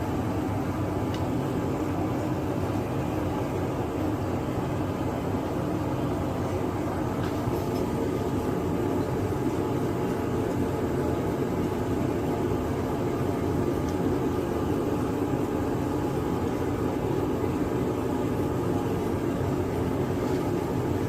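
Steady roaring rumble of a running blacksmith's forge, with a few faint light clicks.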